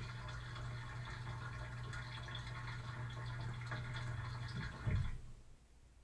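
Dishwasher running its wash cycle, heard from inside the tub through a waterproof camera housing: water spraying over the dishes above a steady low pump hum. About five seconds in there is a low thump and the pump and spray cut off suddenly.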